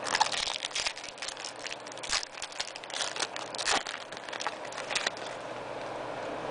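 Foil trading-card pack wrapper being torn open and crinkled by hand: a run of quick crackling rustles that stops about five seconds in.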